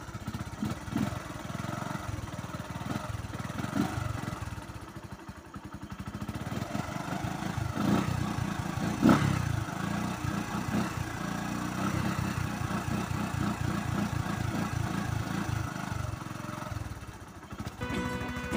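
Bajaj single-cylinder motorcycle engine idling while it warms up from cold, a steady run of firing pulses that gets louder from about six seconds in.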